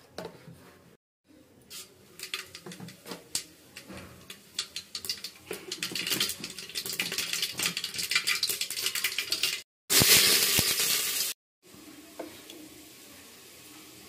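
Liquid heating in an aluminium cooking pot, sizzling and crackling, the crackles growing denser and louder. After a short gap, a spell of loud, dense sizzling cuts off suddenly, and a quieter steady sound follows.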